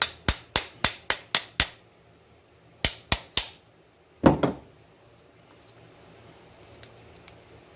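Light, sharp taps of a tool on the housing of a freshly reassembled ATV starter motor: seven quick taps at about four a second, three more a moment later, then one louder, duller knock.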